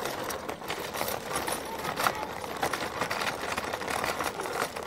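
Pedal go-kart rolling over rough concrete: its hard plastic wheels and frame give a dense, steady rattle of rapid irregular clicks.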